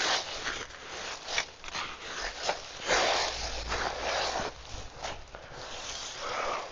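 Dry leaves rustling in irregular bursts as gloved hands dig through and shift them in a compost bin.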